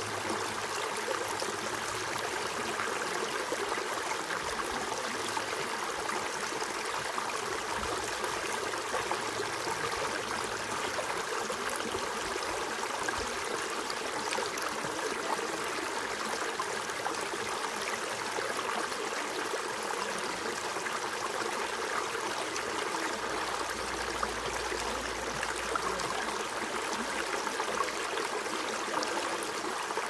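Shallow, rocky mountain stream running over stones and pebbles in small riffles: a steady, even rush and babble of water.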